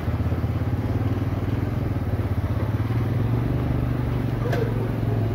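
Lifan cargo motor tricycle's engine running steadily close by, a low, rapidly pulsing drone.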